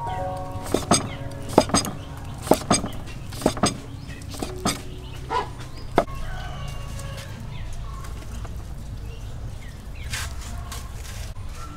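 Cleaver chopping grilled banana on a wooden chopping block: sharp knocks, often in pairs, through the first six seconds. Chickens cluck in the background.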